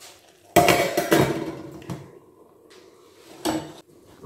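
Glass pan lid set down on a steel frying pan: a loud clatter with a brief ring about half a second in, followed by a few lighter knocks of lid and utensils.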